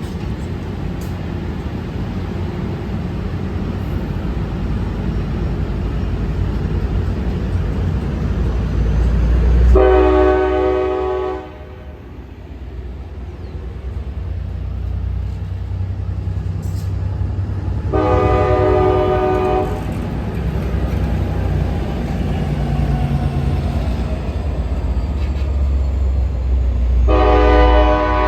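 Amtrak Capitol Corridor passenger train, a cab car leading and an EMD F59PHI diesel locomotive at the rear, with a continuous low rumble. Its horn sounds three blasts of many stacked tones, each about one and a half to two seconds long and roughly eight seconds apart.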